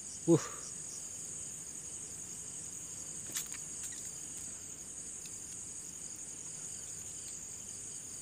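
Steady, high-pitched chorus of night insects chirring without a break. A short voice exclamation comes just after the start, and a couple of faint clicks about three and a half seconds in.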